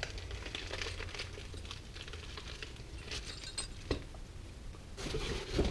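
Faint clicks and light rattling of small parts and packaging being handled, with one sharper click about four seconds in.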